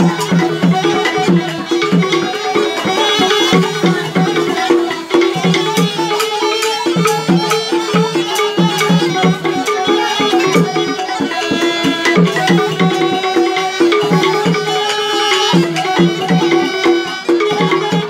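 Batak uning-uningan ensemble playing instrumental folk music: a garantung wooden xylophone struck with two mallets in a quick, even rhythm, with two sulim bamboo flutes playing the melody above it.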